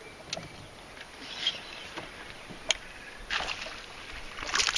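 A hooked fish splashing at the surface as it is reeled in toward the boat, in scattered short bursts, with one sharp click a little past halfway.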